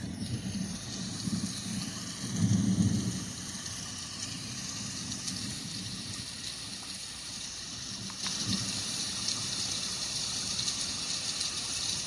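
A Housbay white noise machine's thunderstorm track playing through its small speaker: a steady rain hiss with a low rumble of thunder about two and a half seconds in. About eight seconds in there is a click and the sound changes to a brighter, steady hiss.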